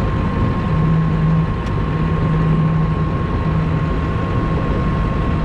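Horizontal-auger feed mixer wagon running off a tractor, its augers turning a load of feed as it mixes: a steady heavy drone with a thin, steady high whine over it.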